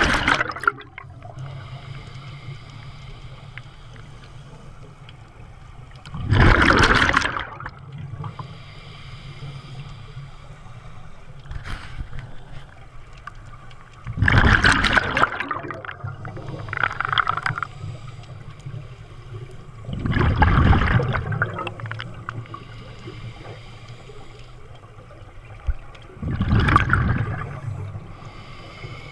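Scuba diver breathing through a regulator underwater: a rush of exhaled bubbles about every six seconds, each lasting a second or so, with a low steady hum between them.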